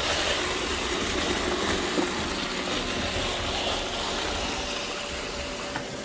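iRobot Roomba i7 robot vacuum running over spilled rice on a hard floor: a steady whirr of its suction fan and brushes, with a brief click about two seconds in, easing off slightly near the end.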